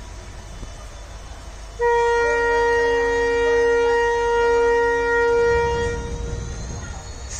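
Air horn of a WDP4D diesel locomotive sounding one long steady blast of about four seconds, starting about two seconds in. A low rumble rises as the horn fades near the end.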